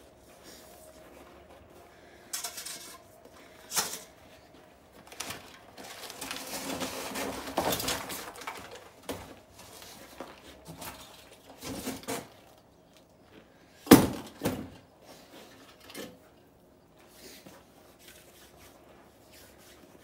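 Parts of a Harbor Freight Haul-Master aluminum hitch cargo carrier being handled and set down: scattered light metal clanks and knocks, with a few seconds of scraping and rustling about a third of the way in. The sharpest, loudest knock comes about two-thirds of the way through, followed quickly by a second.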